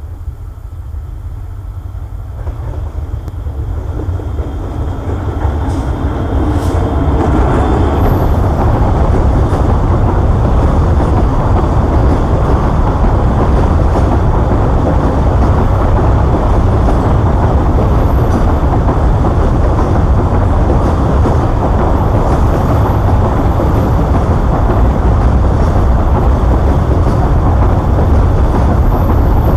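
Babaranjang coal train passing: the diesel locomotive draws near and grows louder over the first several seconds, then a long string of coal wagons rolls by with a steady rumble of wheels on rails.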